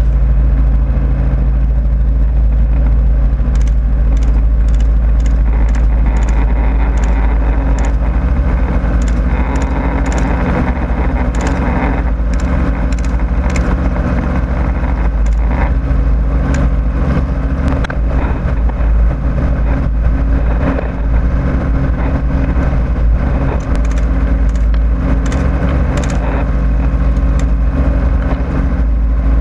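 Helicopter in flight, its rotor and engine making a steady, loud drone with several steady low tones. From about three seconds in, scattered sharp cracks of gunfire from the aircraft cut through it, irregularly spaced.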